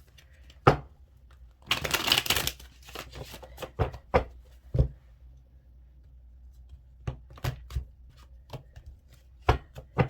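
Tarot deck being shuffled and handled: a dense flurry of flicking cards about two seconds in, then scattered sharp taps and snaps of cards.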